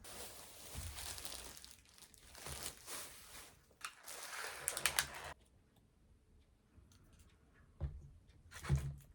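Crinkling and rustling, as of wrapping or packaging being handled, for about five seconds, then two short knocks near the end.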